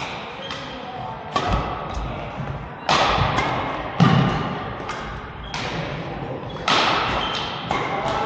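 Badminton rally: racket strings hitting the shuttlecock about every one to one and a half seconds, each hit sharp and echoing in the hall, with brief squeaks in between.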